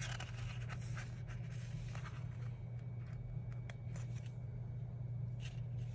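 Faint rustling and light taps of a paper sticker sheet and metal tweezers on a planner page, a few scattered small clicks, over a steady low hum.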